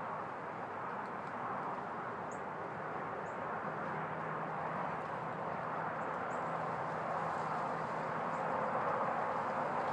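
Steady rushing outdoor background noise, growing slightly louder toward the end, with a few short, faint, high bird chirps about two, three and six seconds in.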